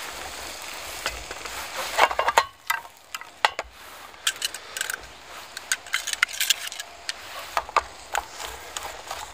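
Garlic and onions sizzling in butter in a metal French army mess tin, steady for about the first two and a half seconds, then quieter, with a run of sharp scrapes and clicks as they are stirred against the pan.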